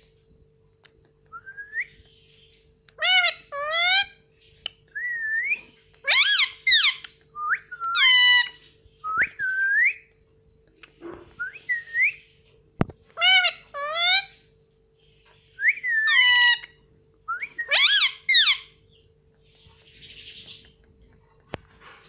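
Indian ringneck parakeet giving loud whistled calls, mostly in quick pairs of notes that swoop up or down in pitch, about six times, with softer rising chirps in between.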